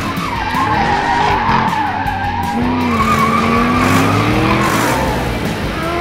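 A squeal like skidding tyres, wavering up and down in pitch, over background music.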